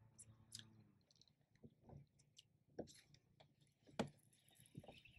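Faint, scattered clicks and light taps from a rod and baitcasting reel being handled on a kayak, with one sharper click about four seconds in.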